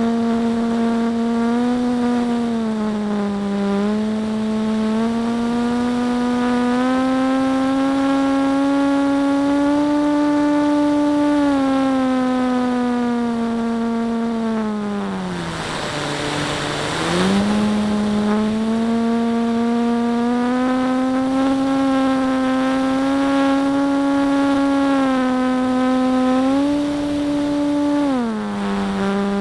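Motor and propeller of a radio-controlled warbird model, heard from a camera mounted on the plane, droning steadily with a pitch that rises and falls with the throttle. Around the middle the pitch drops low for a couple of seconds while a loud hiss swells, and the pitch drops again near the end.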